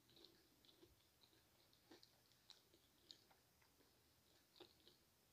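Very faint closed-mouth chewing of food, heard as a scattered handful of soft mouth clicks.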